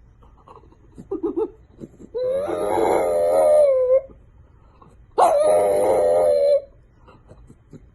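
A dog howling: two long, wavering howls of about two seconds and a second and a half, with a few short yips before the first.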